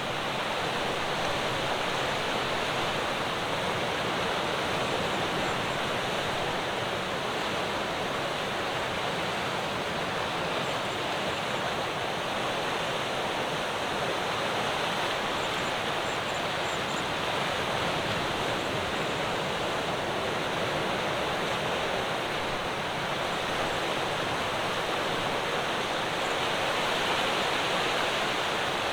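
Ocean surf: a steady rushing wash of waves breaking on a rocky shore, swelling slightly near the end.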